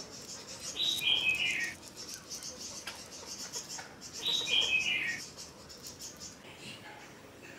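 A bird calling twice, each a short call that steps down in pitch, about three seconds apart, over a steady high-pitched pulsing chirr in the background.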